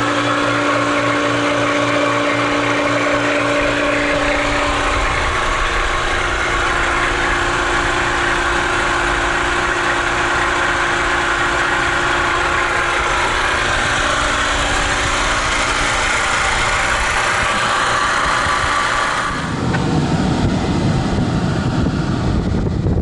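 Steady mechanical hum of air-conditioning refrigerant equipment running, with a change in the hum's pitch about five seconds in. Near the end a rougher, low rumbling noise takes over.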